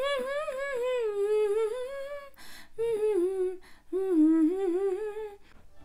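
A woman humming the melody of a Nepali song with her lips closed, in three wavering phrases with short breaths between them.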